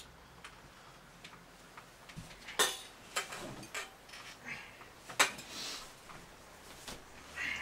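Scattered light clicks and knocks with rustling of bedding as a person stirs and gets up out of bed, with two louder sharp knocks, one about two and a half seconds in and one about five seconds in.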